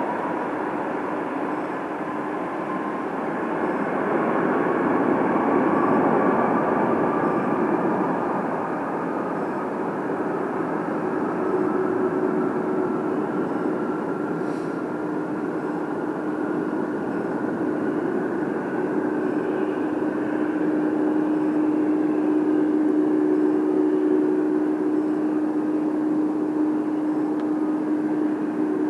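Boeing 747-400 freighter's four turbofan engines at takeoff power during the takeoff roll and climb-out: a steady roar with a fan whine that slowly rises in pitch over the first half, under a steady lower hum.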